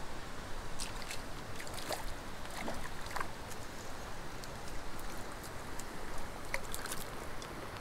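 A hooked brook trout splashing at the surface of a still pond, a scatter of short light splashes over a steady background hiss.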